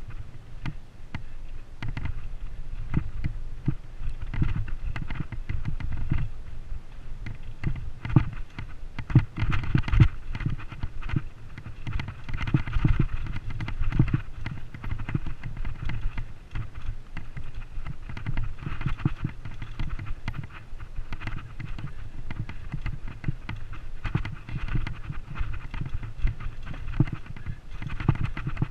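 Wind rumbling on a helmet-mounted camera's microphone as a mountain bike descends rocky singletrack, with frequent knocks and rattles of the bike jolting over rocks.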